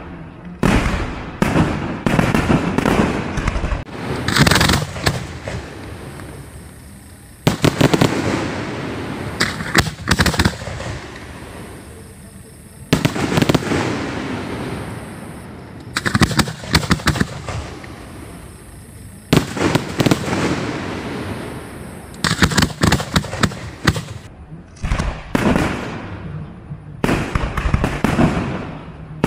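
Aerial fireworks display: shells bursting in quick volleys of sharp bangs, with crackling between them, coming in several salvos separated by short lulls.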